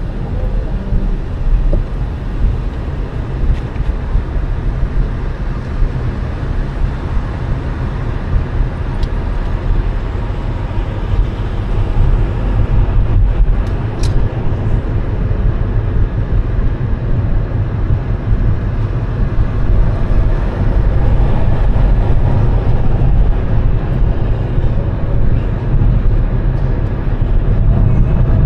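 Car driving on a city street: steady road and engine rumble, deepest at the low end, getting a little louder toward the end.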